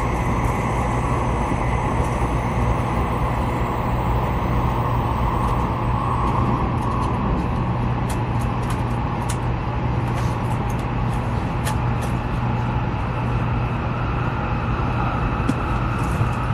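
Steady running noise of a Taiwan High Speed Rail train heard from inside the passenger car: an even rush over a constant low hum. A few faint clicks come in the second half.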